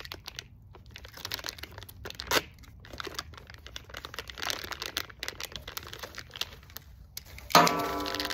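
Plastic packaging crinkling and rustling as it is handled and pulled open, with a sharper rip about two seconds in. Near the end, music starts abruptly and loudly.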